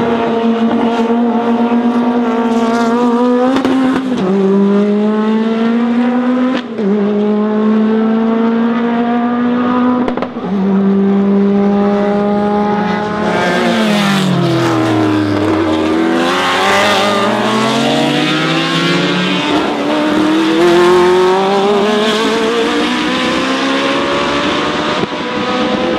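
Racing car engine at full throttle, upshifting three times with the pitch dropping at each change, then passing close with a steeply falling pitch, followed by an engine note climbing as it accelerates again.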